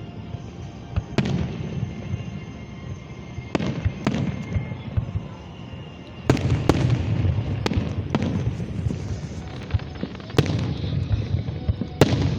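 Aerial fireworks going off: sharp bangs every second or two over a low rumble and crackle, growing louder and busier about halfway through.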